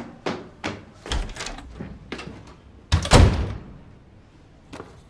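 Footsteps on hard stairs, then about three seconds in a door slams shut with one heavy thud.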